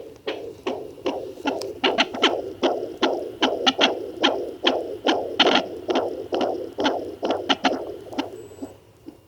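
Fetal heartbeat of a twin at 28 weeks picked up by a handheld fetal doppler and played through its speaker: rapid, steady pulses, about two and a half a second.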